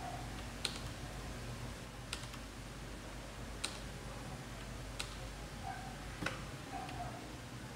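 Single keystrokes on an IKBC Table E401 mechanical keyboard with Cherry MX Brown switches. Five separate clicks come about one every second and a half, over a low steady hum.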